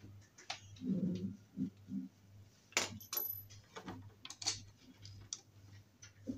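Small metal screws clinking and clicking in the hands as they are set by hand into the holes of a wooden cot's frame, with scattered light knocks against the wood.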